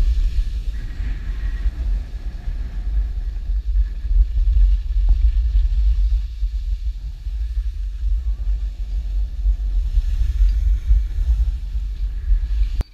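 Wind buffeting the microphone of a skier's action camera during a downhill run: a loud, steady low rumble that cuts off suddenly near the end.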